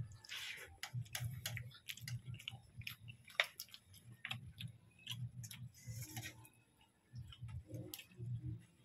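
Scattered light clinks and clicks of a metal ladle and spoons against stainless-steel bowls as food is served, over a low uneven rumble.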